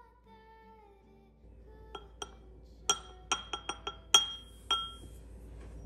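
A spoon tapping against a porcelain bowl: about ten quick, sharp clinks over some three seconds, each with a short ring, starting about two seconds in.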